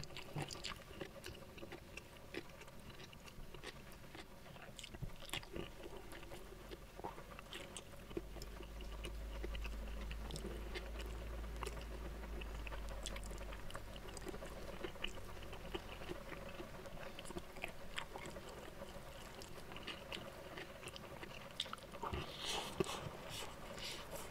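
Close-miked chewing of a mouthful of rice and side dishes, with soft wet smacks and small clicks from the mouth and fingers. A faint low hum runs under it for a few seconds in the middle, and a brief burst of crisper crunching comes near the end.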